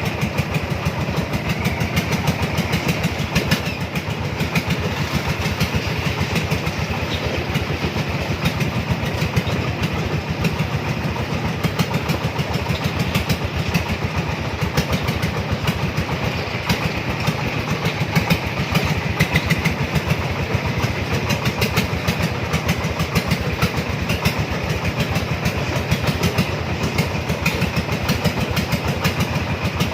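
Three-wheeler cargo vehicle's engine running steadily while driving with a load, with a fast, even beat that does not let up.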